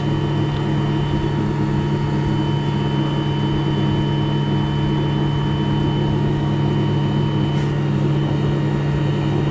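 Homemade brushless electric outboard motor running steadily at speed with the boat planing: a constant multi-tone whine over a steady rush of water and wind noise.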